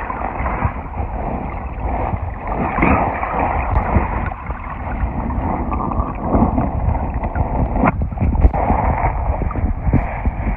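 Muffled rushing and rumbling of river water picked up by a phone microphone held underwater, with a few sharp knocks, the loudest about eight seconds in.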